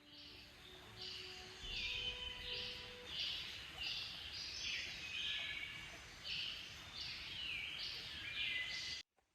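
Birds singing: short, high phrases, each dropping in pitch, repeated about twice a second, cutting off suddenly near the end.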